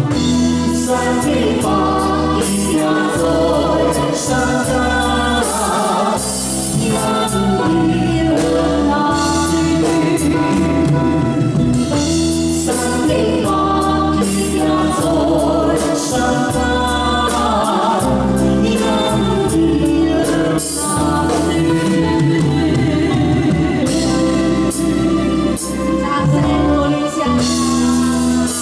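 A woman and a man singing a Cantonese song as a duet into microphones, backed by a live band with electric guitar, bass and drums, all through the stage PA.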